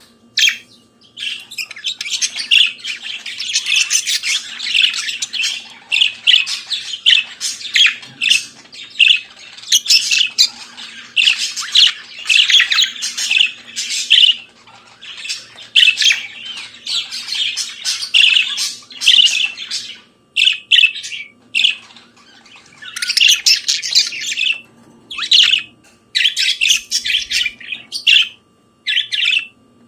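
Budgerigars chattering and warbling: a dense run of short squawks, chirps and trills for the first two-thirds, breaking into separate bursts with short pauses near the end.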